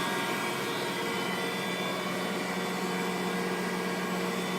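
Kent KGS-63AHD hydraulic surface grinder idling with its spindle, hydraulic pump and coolant pump running: a steady hum with several held tones over an even hiss.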